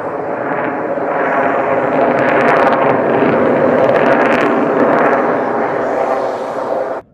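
Twin-engine jet noise from an F-22 Raptor's two turbofans in a low aerobatic pass: a loud, steady rushing sound with a crackle in the middle. It cuts off abruptly just before the end.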